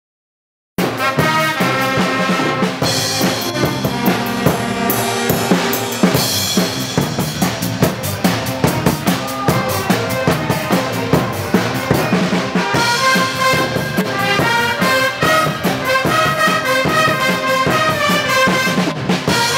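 A pep band starts playing about a second in. A drum kit keeps a steady beat under a brass and saxophone section of trumpets, trombones and saxophones playing the tune.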